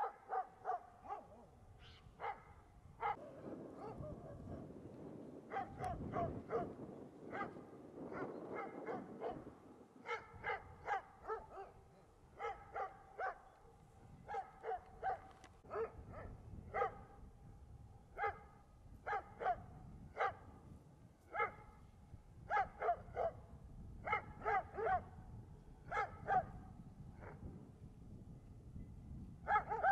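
Dogs barking repeatedly: short barks, singly or in pairs, at an uneven pace of roughly one or two a second. Between about three and ten seconds in there is a low rush of noise under the barking.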